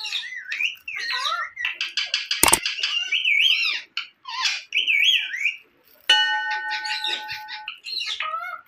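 Rose-ringed parakeet chattering in rapid, warbling whistled calls and harsh chirps. A sharp click comes about two and a half seconds in, and a bell-like chime rings for about a second and a half just after six seconds.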